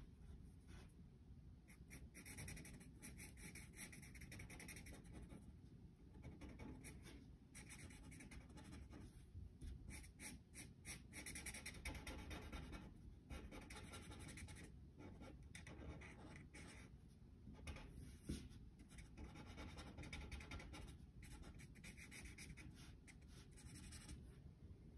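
Copic alcohol marker nib rubbing over drawing paper in repeated short shading strokes: a faint hiss that starts and stops with each stroke.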